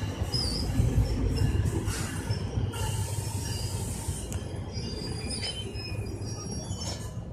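Passenger train rolling into a station. A low rumble slowly fades as it slows, with high, wavering wheel squeals about half a second in and again around five seconds.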